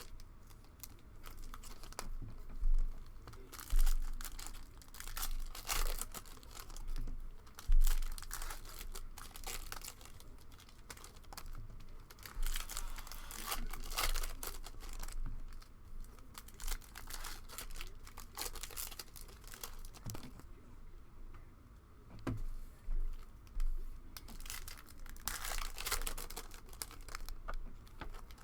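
Trading card packs being torn open and the cards handled and flipped through by hand: rustling wrapper crinkling and tearing, with irregular clicks and a few sharper snaps.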